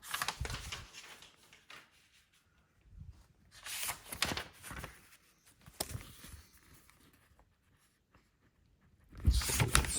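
Paper instruction manual being leafed through: pages rustling in several short bursts with near-quiet pauses between them.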